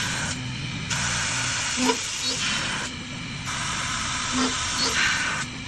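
A two-head CNC lock-hole drilling machine for aluminium profiles running, with a steady hissing machining noise that drops out briefly about every two and a half seconds.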